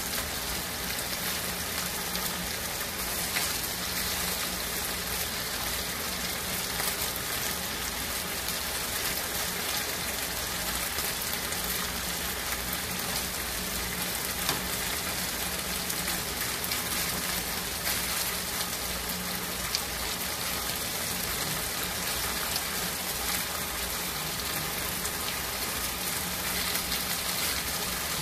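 Thin strips of marinated beef sirloin searing in oil in a frying pan over medium-high heat: a steady, dense sizzle, with a few light clicks along the way.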